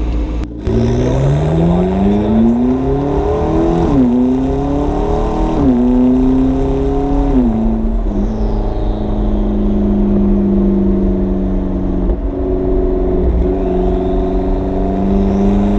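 McLaren twin-turbo V8 on upgraded turbos accelerating hard. The revs climb and fall at three quick upshifts within the first eight seconds or so, then the engine holds a steady note at cruise.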